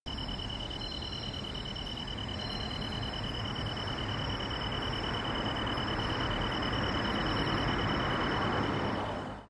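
Evening outdoor ambience: insects, such as crickets, keeping up a steady high trill over a constant noisy wash.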